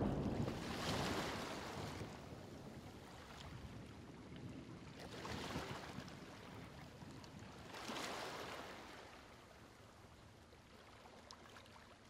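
Sea waves breaking and washing on a rocky shore, surging about three times and then fading away.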